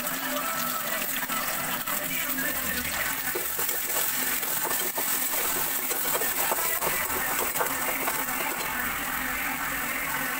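Shallots, green chillies and dried fish sizzling in hot oil in an aluminium kadai, with a metal spatula scraping and clinking against the pan as they are stirred.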